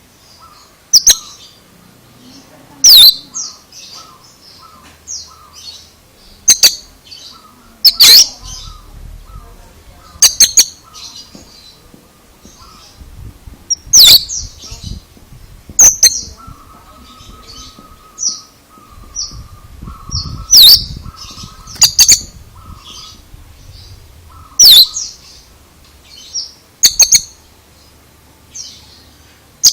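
Oriental magpie-robin (kacer) singing an unusual song: loud, sharp, downward-sweeping notes about every two seconds, with softer chattering between them and a low buzzy trill about two-thirds of the way through.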